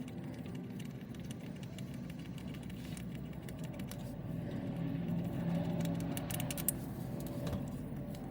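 Hand ratchet clicking in quick runs, most densely around three seconds in and again around six to seven seconds in, over a steady low hum.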